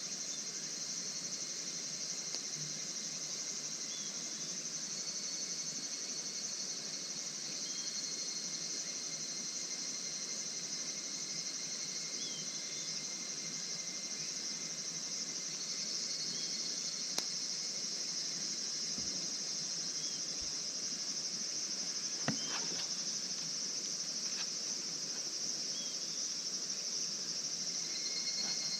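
Steady high-pitched chorus of night insects such as crickets, with a few faint sharp clicks after the middle.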